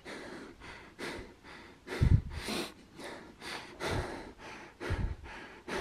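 A man breathing heavily and fast close to the microphone, about two breaths a second, out of fright. A few low thumps come in between.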